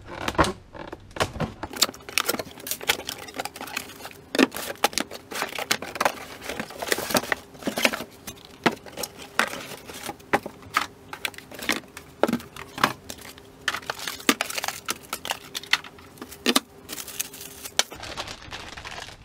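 Cardboard packaging being opened and unpacked: packing tape pulled off the carton, a moulded pulp tray and plastic bags lifted out, in a quick irregular run of crinkles, rustles, scrapes and clicks. A faint steady hum lies underneath.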